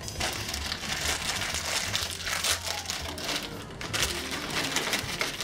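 Plastic snack packet crinkling and rustling as it is pulled open and handled.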